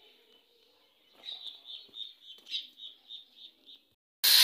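A bird chirping in a quick run of short, high, evenly spaced chirps, about four or five a second. Right at the end a loud steady hiss suddenly cuts in.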